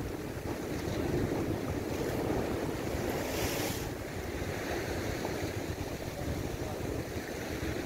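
Sea surf washing against shoreline rocks, with wind rumbling on the microphone. A brief hiss rises over it about three seconds in.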